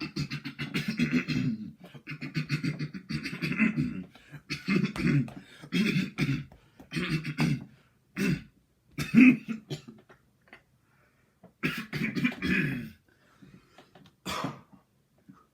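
A man clearing his throat over and over in long, rough, hacking bursts, each about a second long, to shift something stuck in his throat. The bursts come further apart and shorter towards the end.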